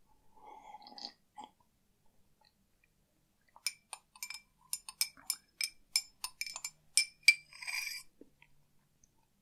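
A short slurp about half a second in, then a spoon stirring in a cup, clinking against its side about a dozen times at three to four strikes a second, each strike ringing with a bright tone.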